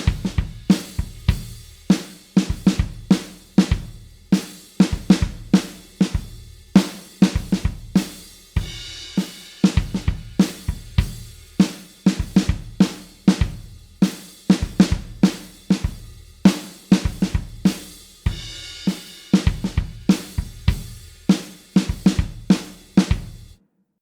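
Alternative-rock drum kit playing a steady groove, with kick drum, snare, hi-hat and cymbals; it stops abruptly near the end.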